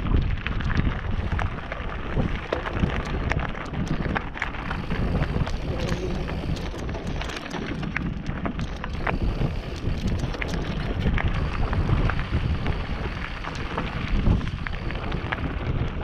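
Wind rumbling on the microphone as a mountain bike rolls over a rocky singletrack, its tyres crunching over loose stones with frequent sharp clicks and rattles.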